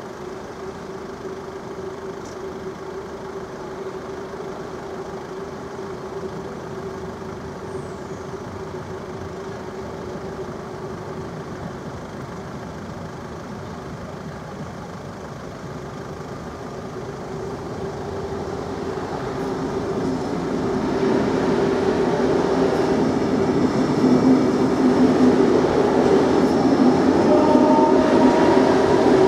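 Level crossing warning signal sounding steadily while an SNCB electric train approaches, its noise growing louder from about two-thirds of the way in. Near the end the train runs over the crossing with a rising whine.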